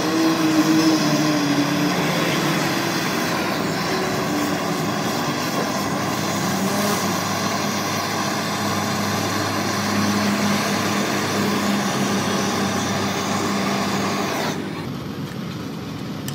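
Steady mechanical drone, like a motor or engine running close by. Near the end it drops suddenly to a quieter, duller hum.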